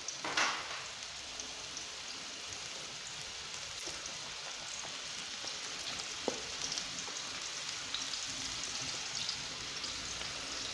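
Chopped onion and ginger-garlic paste sizzling steadily in hot oil in a wok, the sautéing of the aromatics.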